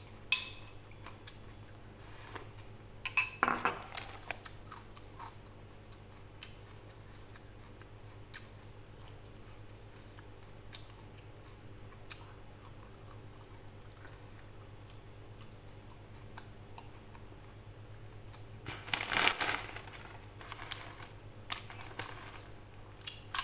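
Close-up eating sounds over a low steady hum: a spoon clinking against a dish, food being handled and chewed, and a louder spell of crisp crackling about nineteen seconds in.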